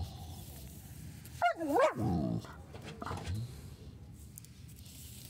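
Saint Bernard making a short vocal 'talking' call, a yowl that drops steeply in pitch and then rises again, about one and a half seconds in. A shorter, lower grumble follows just after three seconds.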